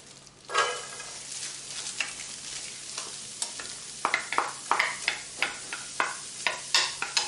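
Chopped onions sizzling in a hot pan, with a sudden burst of sizzle about half a second in. From about four seconds in a utensil stirs and scrapes them, two or three strokes a second, as the onions begin to sweat.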